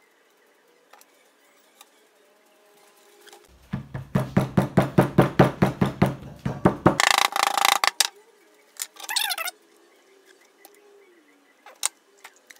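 Claw hammer tapping quickly on a freshly superglued leather lighter sleeve lying on a wooden block, about five light blows a second for some three seconds, pressing the glued seam down. A burst of rough noise lasting about a second follows right after.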